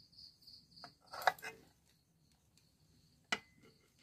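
Raw eggs set down in an aluminium pot: a short clatter of knocks about a second in and one sharp click near the end. An insect chirps in the background, a high pulsing about four times a second.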